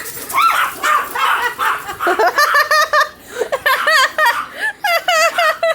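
A person laughing hard, in repeated high-pitched, wavering bursts that grow stronger about two seconds in.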